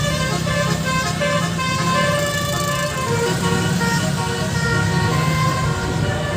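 A bus's basuri telolet horn, a multi-note electric air horn, plays a tune in quick stepped notes over the steady hum of the bus's engine.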